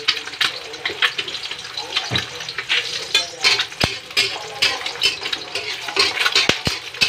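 Two eggs sizzling as they fry in oil in an aluminium wok. A spatula scrapes and taps against the pan, with a few sharp taps a little before the middle and near the end.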